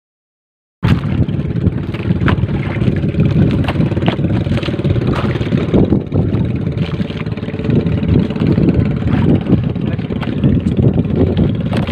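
A trammel net being hauled by hand over a small fishing boat's side, with scattered light knocks over a steady low rumble of the boat and wind on the microphone. The sound cuts in about a second in, after dead silence.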